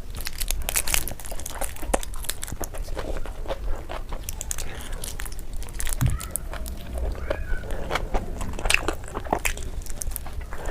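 Close-up chewing and wet mouth sounds of someone eating soft, sticky noodles: irregular smacking clicks and small slurps.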